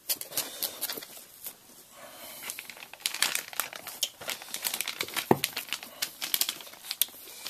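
Metallic anti-static bag crinkling as it is handled, in scattered crackles at first and denser from about three seconds in, with one sharper knock a little past the middle.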